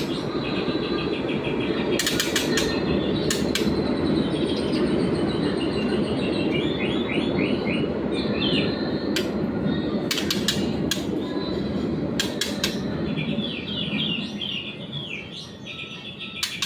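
White-rumped shama giving short bursts of rapid repeated chip notes, over a steady rushing noise that fades in the last few seconds, with a few sharp clicks.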